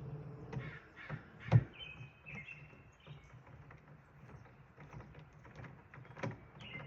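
A few short, harsh bird calls, with clicks and knocks from hardware being handled; the loudest is a sharp knock about a second and a half in.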